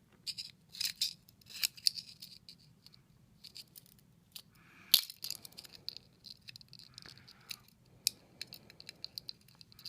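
Irregular light clicks and taps of small metal hard-drive parts being handled and tapped, with one sharper click about five seconds in, over a faint low hum.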